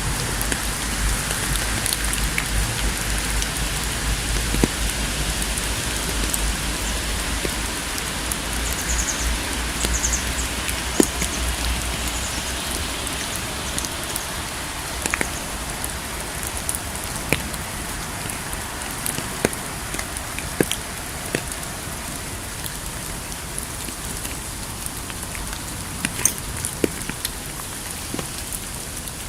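Steady rain hiss with scattered sharp crackles and pops from burning firewood, and a low rumble through roughly the first half.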